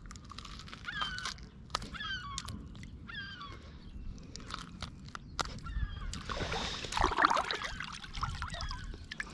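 Birds calling over and over in short gliding chirps, with scattered sharp clicks and a louder rustling, wet-sounding stretch about six to seven seconds in.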